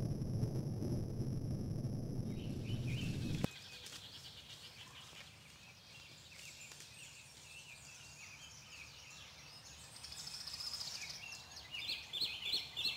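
A loud low rumble cuts off abruptly about three and a half seconds in. After it come wild songbirds singing in the woods, quieter, with a quick run of chirps near the end.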